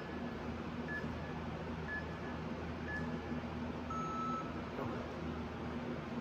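Workout interval timer counting down: four short beeps, one a second, then a single longer, lower beep about four seconds in that marks the start of the work interval. A steady low hum runs underneath.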